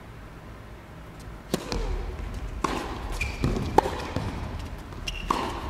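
Tennis rally on an indoor court: a few sharp racket-on-ball strikes about a second apart, starting about a second and a half in, with short squeaks of shoes on the court surface between them.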